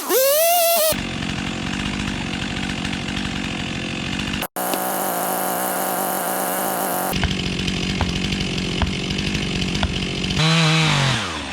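Stihl chainsaw revving, then cutting into a large dead oak under steady load, with a short dropout partway through. Near the end the engine pitch falls as the throttle is let off.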